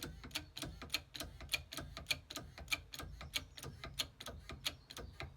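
Rapid, even mechanical clicking, about five clicks a second, that stops just at the end.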